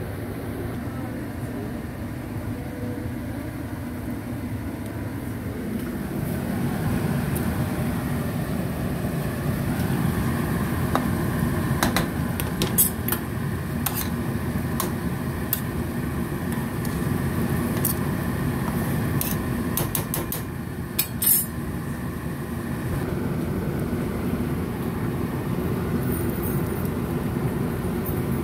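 A steady low rumbling hum, with sharp metallic clicks of a metal spoon knocking against a stainless steel pot, a cluster about twelve seconds in and several more between about eighteen and twenty-one seconds in.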